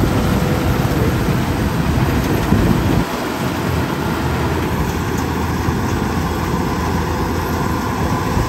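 Zoomlion FH100E rice combine harvester running steadily as it cuts and threshes rice, a continuous engine and machinery drone. It drops a little in loudness about three seconds in.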